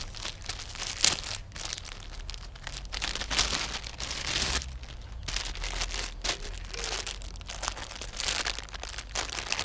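Plastic packaging bag crinkling and tearing as a new lawnmower air filter is unwrapped, in irregular rustles throughout.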